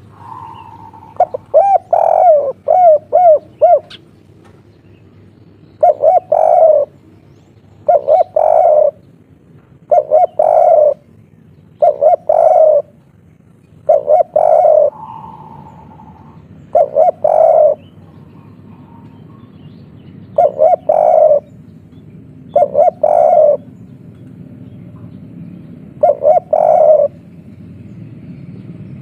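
Spotted dove cooing its three-note "kuk 3" song, a coo phrase about every two seconds. The song opens with a quick run of short rising notes.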